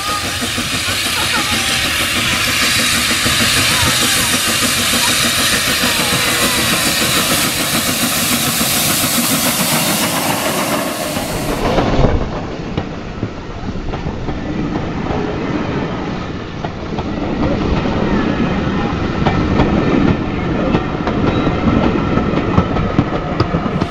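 0-6-0 saddle-tank steam locomotive No 25 Northiam approaching with a steady hiss, then passing close by about halfway through, followed by its passenger coaches rolling past with a rhythmic clickety-clack over the rail joints.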